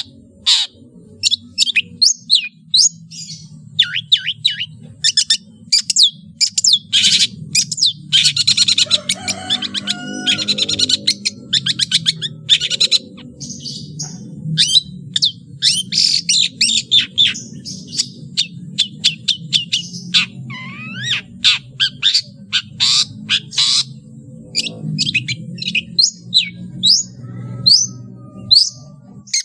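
Long-tailed shrike (cendet) singing a fast, varied song of sharp chips, rapid trills and mimicked calls of other birds, over a low steady hum.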